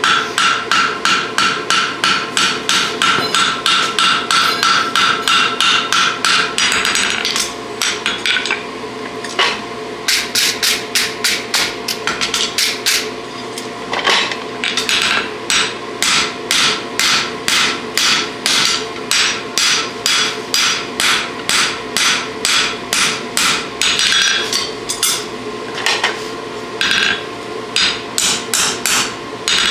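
Hand hammer striking a red-hot draft horseshoe on an anvil, quick regular blows of about three a second with the anvil ringing under them. There is a short break about seven seconds in, then steady blows again, near the end driving a handled tool held on the shoe.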